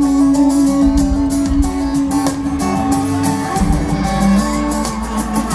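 Live band playing an instrumental break of a country-pop song: electric and acoustic guitars over a steady drum beat, with one long held note that changes pitch about three and a half seconds in.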